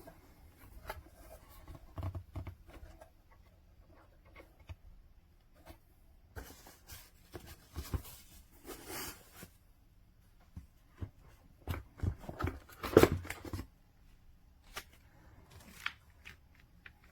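Scattered handling noises: irregular small clicks, knocks and rustling, with a denser, louder cluster of knocks and rustles about twelve to thirteen seconds in.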